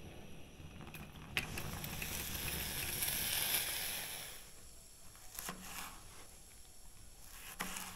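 Crinkly rustling of vegetables being handled for chopping, probably the cabbage. It swells for about three seconds after a sharp knock about a second in, and two lighter knocks come near the end.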